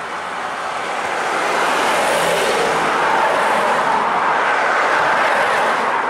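A road vehicle passing close by at speed: tyre and road noise swelling over the first two seconds, holding, then easing off near the end.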